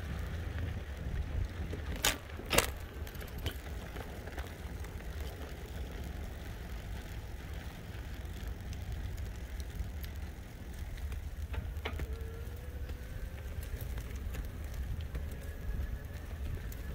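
Steady low rumble of wind and road noise from an e-bike riding along, with two sharp knocks in quick succession about two seconds in. A faint whine rises slowly in pitch in the last few seconds.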